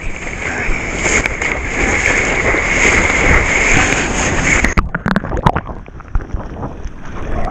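Rushing water and wind buffeting a board-mounted action camera as a bodyboarder moves through breaking whitewater. About five seconds in the rush turns duller and choppier, with splashes, as water washes over the camera.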